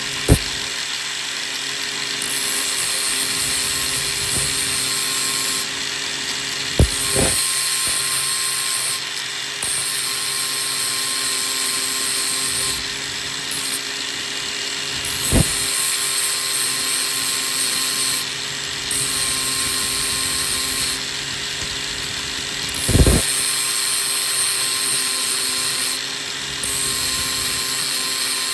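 Welding nuts onto a steel hitch: the arc sizzles in runs of a few seconds, broken by short pauses, over a steady machine hum. Three brief thumps are heard, about a quarter, halfway and four-fifths of the way through.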